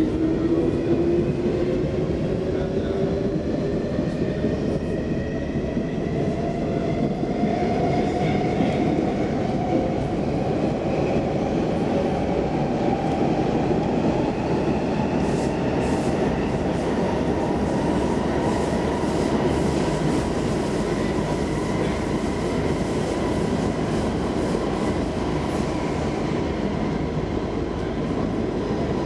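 Stockholm Metro C14 train heard from inside the carriage, accelerating away from a station. A motor whine climbs steadily in pitch for about twenty seconds, then levels off, over the steady running rumble of wheels on rails.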